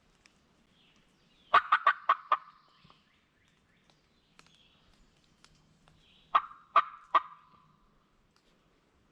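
Wild turkey gobbling close by: two loud rattling series of sharp notes, about five quick ones and then, some five seconds later, three more.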